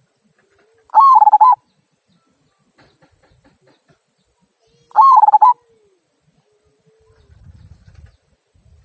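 Local zebra dove (perkutut) with a 'kung' type voice, cooing. There are two short, loud bursts of rapid coo notes about four seconds apart.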